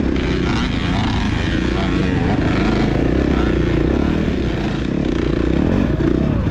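Dirt bike engine running steadily while riding.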